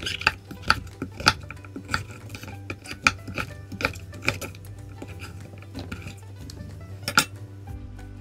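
Chef's knife slicing through raw squash and knocking on a wooden cutting board, irregular sharp strokes about once or twice a second for the first half, then one more near the end.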